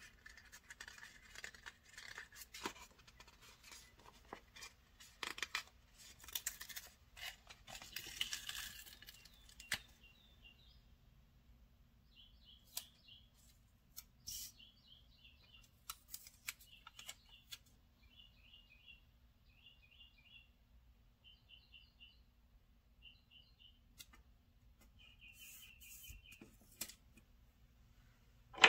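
Sticker paper rustling and crackling, with snips of scissors, as a strip of planner stickers is handled and trimmed for the first ten seconds or so. After that a small bird chirps faintly in short bursts of quick repeated notes.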